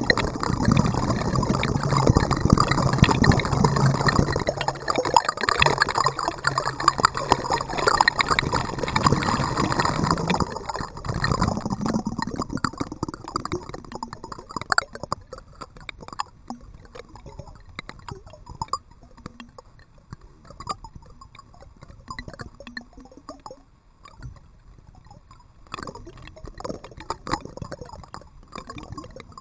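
Water sloshing and gurgling around a kayak, with small splashes and drips. It is busier and louder for the first ten seconds or so, then settles into quieter, scattered splashes.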